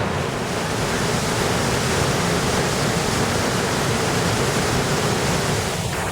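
Roar of Iguazu Falls: a steady rush of falling water.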